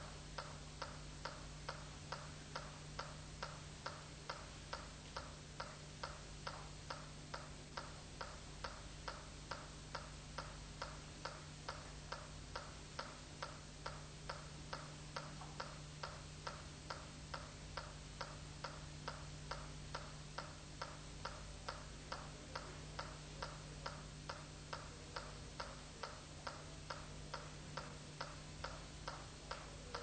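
A metronome ticking steadily at about two ticks a second, keeping time for the dancers, over a faint steady low hum.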